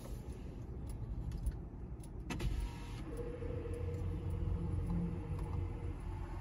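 Low, steady rumble of a car at a standstill, heard from inside the cabin, with a sharp click about two and a half seconds in and a faint steady hum in the second half.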